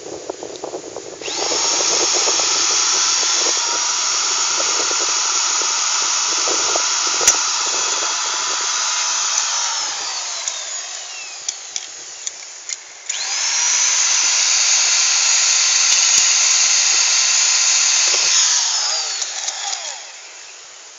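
Handheld electric power tool run twice. It spins up with a rising whine and runs steadily for about eight seconds, then winds down; after a short pause it spins up again, runs for about five seconds and winds down.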